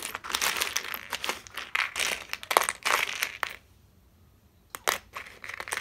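A pile of buttons clicking and clattering as a hand stirs through them: a dense rattle for about three and a half seconds, then a pause and a few single clicks near the end.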